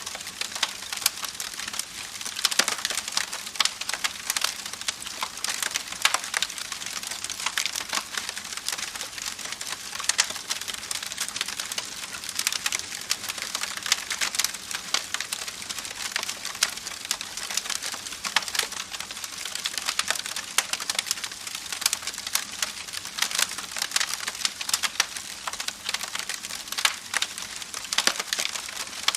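Campfire burning with steady hissing and dense, irregular crackles and pops of the wood.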